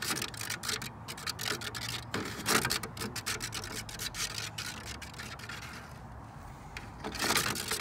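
Plastic spin-art tray clicking and rubbing as it is turned under a paint pour, a dense run of small clicks that thins out in the middle and picks up again near the end.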